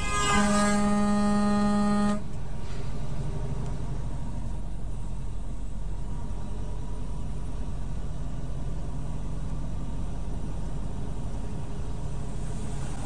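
One horn blast of about two seconds, held on a single steady pitch, just after the start. Under it and after it, the steady low rumble of the truck's engine and road noise inside the cab.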